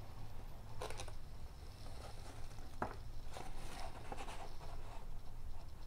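A paper fact sheet rustling and crackling as it is handled and turned over, in a few short bursts with one sharper crackle about three seconds in.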